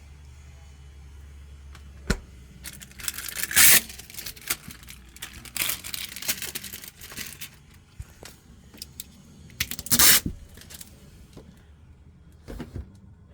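Fridge packing material being handled and pulled about: irregular rustling, tearing and scraping, with two loud bursts and a few knocks.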